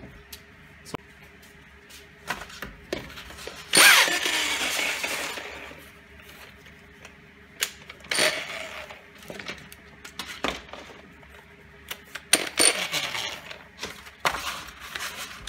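A roll of sandpaper being unrolled and handled: several rasping, rustling bursts of the abrasive sheet, the loudest about four seconds in, among small clicks and knocks.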